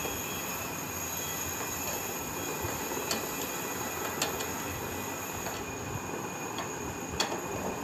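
A T-handle socket wrench tightening a motorcycle handlebar clamp bolt, giving a few faint metal clicks, about three, four and seven seconds in. Under it runs a steady background hiss with a thin high whine.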